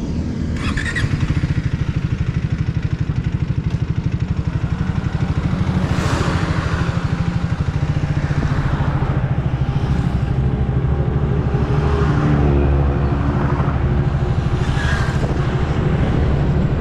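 Triumph Speed 400's single-cylinder engine pulling away from a standstill about a second in and then running on the road, a steady fast pulsing beat.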